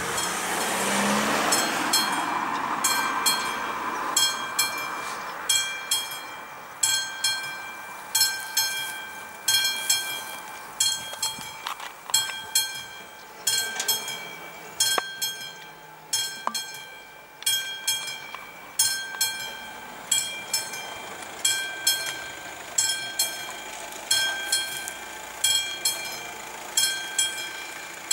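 Railway level-crossing warning bell ringing in a steady series of ringing strikes, a little slower than once a second. It warns that the crossing is closing and the barriers are coming down for an approaching train.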